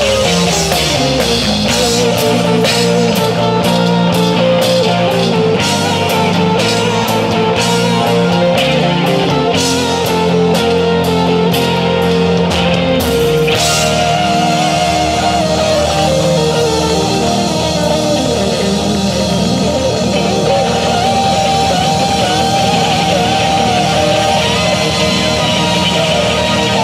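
Live rock band playing electric guitars, keyboard and drums. The drums keep a steady beat until about halfway through, then stop after a final hit, leaving held guitar and keyboard notes ringing on.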